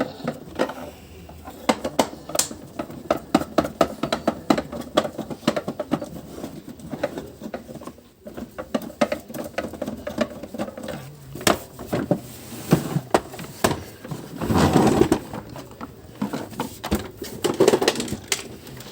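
Screwdriver undoing the screws of a Philips FC8950 vacuum cleaner's plastic housing: a run of irregular sharp clicks and creaks. These are the characteristic clicks of screws that have not been undone for years, a sign the housing has not been opened in that time.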